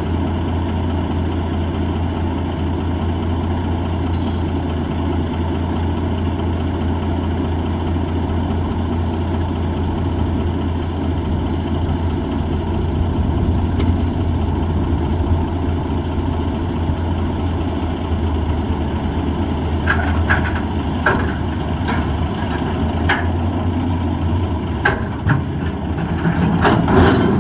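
M816 wrecker's six-cylinder diesel engine running steadily. In the last several seconds there are a handful of sharp metallic clanks and knocks.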